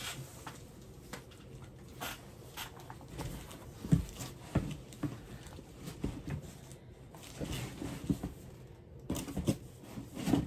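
Rummaging and handling objects at a desk: irregular light knocks, clicks and rustling, with a sharper knock about four seconds in.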